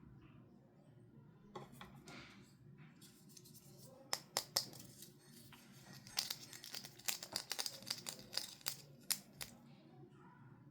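Toy packaging being opened by hand: a run of sharp clicks and crinkly snips, starting about four seconds in, thickest in the middle and stopping before the end.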